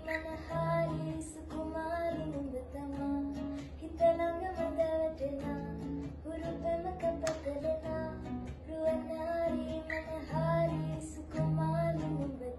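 A young woman singing a melodic pop song in Sinhala, accompanied by a plucked acoustic guitar.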